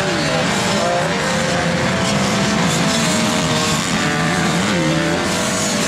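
A pack of motocross dirt bikes racing, several engines revving up and down at once as the riders accelerate and shift through a turn.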